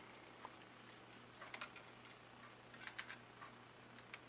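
Near silence with a low steady hum and a few faint clicks and taps from multimeter test leads being handled around the battery terminals.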